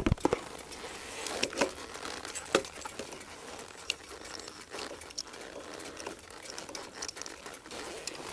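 Hands working a RAM handlebar camera mount and a small action camera in its plastic case: scattered clicks and taps with soft rustling.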